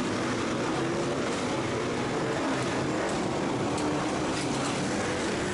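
Supermoto motorcycle engine running at a steady idle, heard from the bike itself with a steady rushing noise around it.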